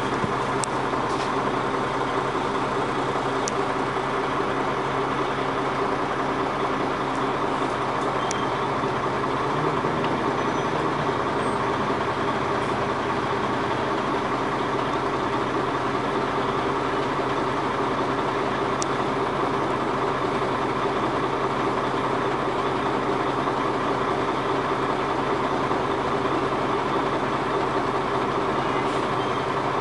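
Dennis Arrow bus engine idling steadily, with a constant hum and a few faint ticks.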